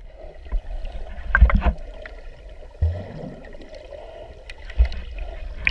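Muffled underwater sound from a GoPro held underwater by a swimmer: a low rumbling wash of water with a few dull thumps and faint ticks as the swimmer moves.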